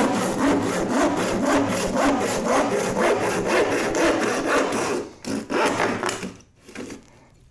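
Small 18-inch crosscut hand saw cutting across a board in rapid, steady strokes, stopping about five seconds in as the cut finishes; a few short handling sounds follow.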